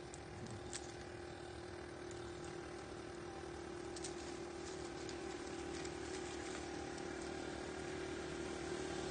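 A steady engine hum that grows slowly louder, like a motor drawing nearer, with a few light clicks and snaps over it.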